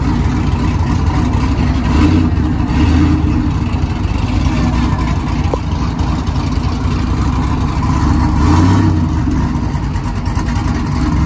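Pickup truck's V8 running through a 3-inch Magnaflow bullet muffler, idling with a low rumble and blipped twice, about two seconds in and again near the end.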